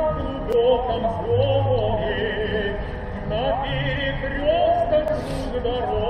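A song: a voice holding long notes with a wavering vibrato, over music.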